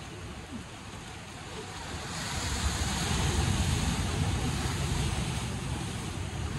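Sea surf washing and breaking against shoreline rocks, swelling louder about two seconds in, with wind rumbling on the microphone.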